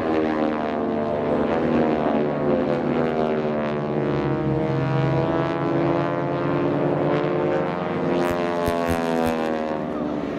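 Engines of several propeller-driven aerobatic airplanes flying a formation display overhead, droning together. Their pitch rises and falls as the planes loop and pass.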